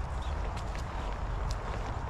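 Footsteps on stony ground, a few sharp irregular clicks, over a steady low wind rumble on the microphone.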